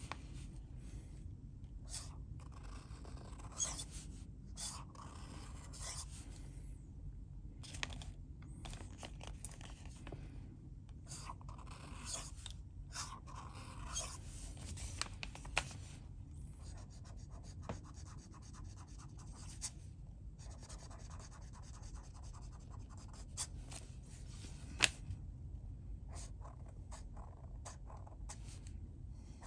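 Flexible fountain pen nib scratching across paper while writing cursive letters and loops, in strokes of varying length with short pauses between them. A single sharp tick near the end.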